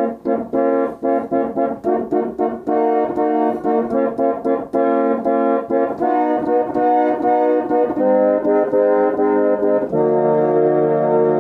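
Crane & Sons pump reed organ playing a quick tune in full chords with all the stops open. About two-thirds through it settles into a long held chord, and a deep bass note joins it near the end.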